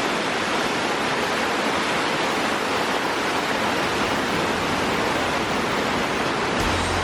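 Rushing water of a river, a steady loud even hiss.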